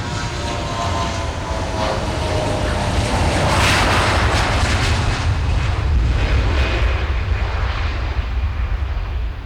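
Jet airliner taking off and passing close: its engine whine falls in pitch as it approaches, the roar peaks about four seconds in, then a heavy low rumble trails away.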